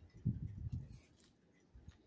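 Crunchy chopped salad being chewed, a dense run of irregular crunches for about a second, then a pause.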